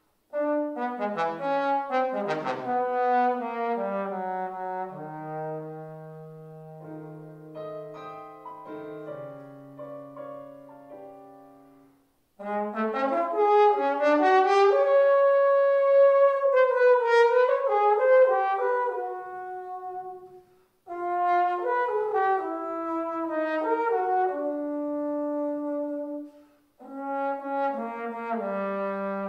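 Solo trombone playing an unaccompanied melodic line in phrases. It opens with a quick falling run into low held notes, and a loud high note is held about halfway through. The phrases are broken by short breath pauses.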